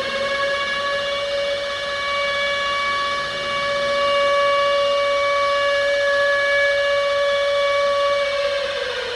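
Civil defense siren sounding one long, steady tone, which starts to wind down in pitch near the end.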